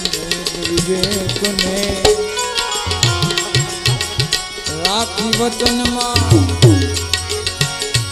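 Indian devotional folk music: a harmonium holding chords and melody over a quick hand-drum rhythm, with manjira (small brass hand cymbals) clinking steadily on the beat.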